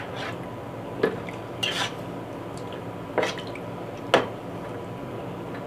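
A spoon knocking and scraping against a metal pot while marinated chicken pieces and potato wedges are turned over in their wet masala: about five separate clicks and wet squelches roughly a second apart, over a steady low hum.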